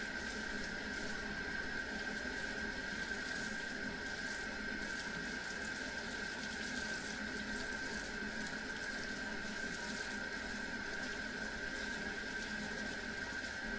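Kitchen faucet running steadily into a plastic jar of soapy water, which overflows into a stainless steel sink as the suds are flushed out, with a steady high tone along with the water.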